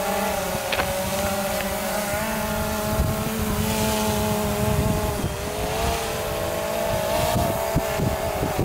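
Autel Robotics X-Star Premium quadcopter in flight, its electric motors and propellers making a steady whine. The pitch dips and rises again about halfway through and once more near the end as it is steered.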